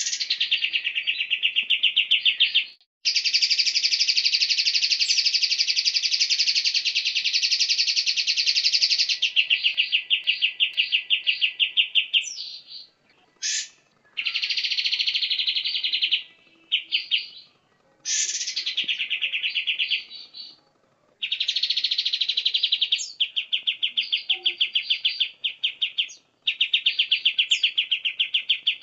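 Songbird song: fast, high-pitched trilled chattering in long runs of several seconds, broken by brief pauses and a few quick sweeping whistles.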